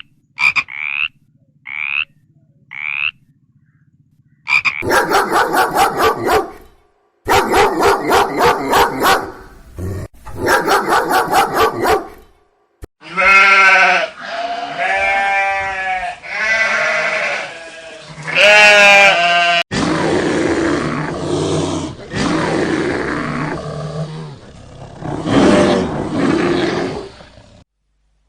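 A series of recorded animal calls from several different animals. First come four short rising chirps. Then there are three bouts of rapid, pulsing calls, then a run of pitched calls that bend up and down, and last some long, rough, rasping calls that stop shortly before the end.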